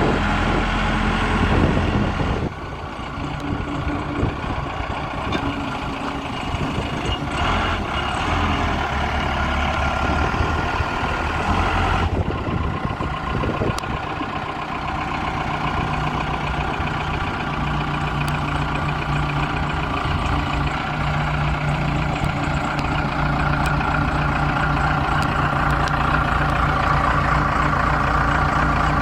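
Case 580L Series II backhoe's four-cylinder diesel engine running, its note changing a few times: it drops about two seconds in, shifts again near the middle, then holds a steadier, stronger pitch.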